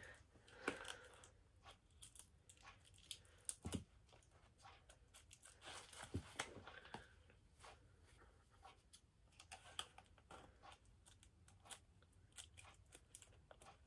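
Faint, scattered crinkling, tearing and small clicks of a CD package's plastic wrapping being opened and torn off by hand.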